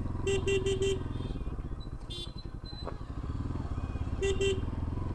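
Bajaj Pulsar NS200 single-cylinder engine running through its modified loud exhaust while riding, easing off in the middle and picking up again. The bike's horn sounds four quick beeps about a quarter second in and two more near the end.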